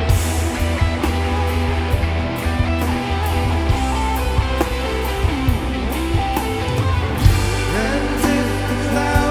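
Rock music: guitar over bass and a steady drum beat.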